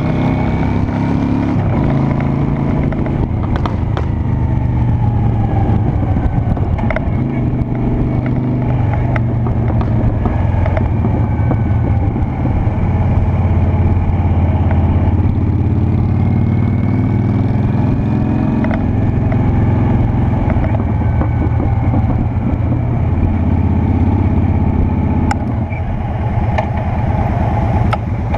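Honda Shadow Spirit 750's V-twin engine running under way, its note rising and falling several times with the throttle.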